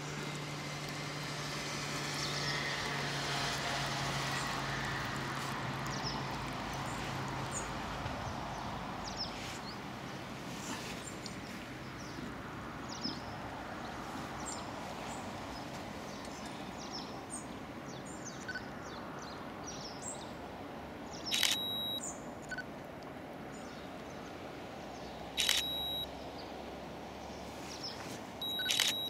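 A camera shutter fires three times, about four seconds apart, in the last third, each a short sharp mechanical burst. Behind it there is steady outdoor background with faint scattered bird chirps.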